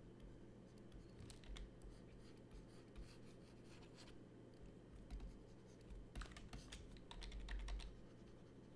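Faint clicking of computer keyboard keys in short runs: about a second in, again around three to four seconds, and a longer run from about six to eight seconds, over a low steady hum.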